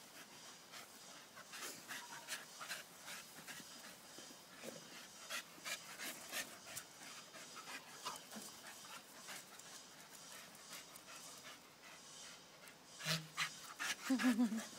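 Staffordshire bull terrier panting, quick repeated breaths close to the microphone. Near the end it gets louder, with a short pitched sound.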